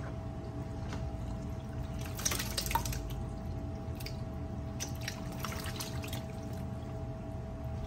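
Raw diced chicken breast sliding out of a plastic tub into a large aluminium pot of curry sauce, with scattered wet slaps and small splashes from about two seconds in. A steady low hum runs underneath.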